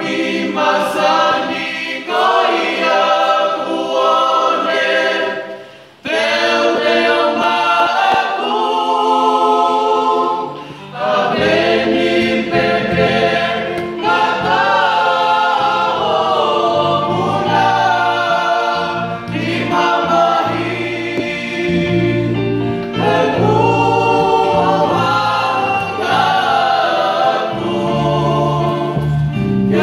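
Youth choir singing a song in Tongan, several voices together in phrases with short breaths between them. A lower part joins about eleven seconds in.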